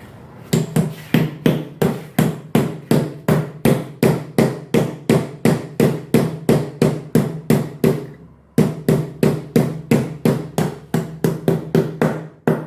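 A new bearing being hammered into its seat in a washing machine's tub bearing housing: steady, evenly spaced blows of metal on metal, about three a second with a ringing note after each, with one short pause about eight seconds in.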